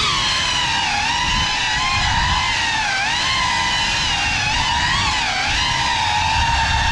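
Cinelog 35 FPV cinewhoop's brushless motors and ducted propellers whining steadily, the pitch rising and dipping smoothly with the throttle, over a low rush of prop wash.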